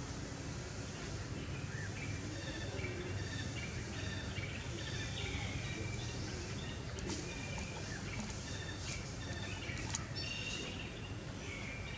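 Steady background noise with small birds chirping faintly now and then, short high notes scattered through. There are a couple of light clicks, around seven and ten seconds in.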